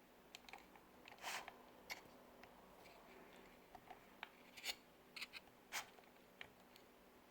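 Faint, scattered small clicks and scrapes as a 5.5 mm tool and the iDrive controller's small parts are handled while a screw is set into the assembly, a sharper click now and then.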